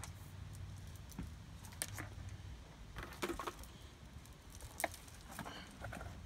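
A string of lights and its cord being handled, giving scattered light clicks and rattles, over a low steady rumble.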